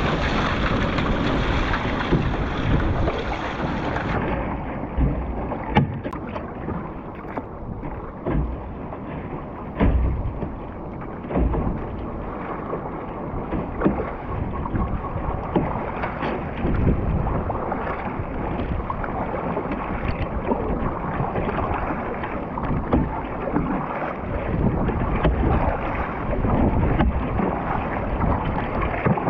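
Surfski being paddled through choppy sea: water rushing and slapping against the hull and paddle blades splashing in, with scattered sharp knocks and splashes, under wind noise on the microphone.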